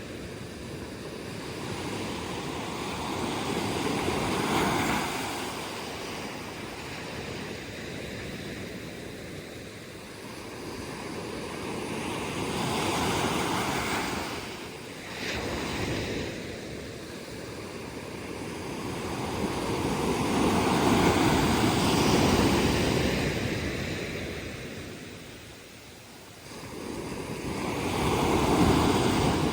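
Ocean waves breaking on the shore and washing back, a steady rush that swells and fades with each wave, the bigger breaks about 4, 13, 21 and 28 seconds in.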